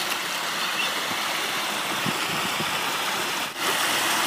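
Floodwater rushing across a road: a steady hiss of fast-flowing water, with a brief break about three and a half seconds in.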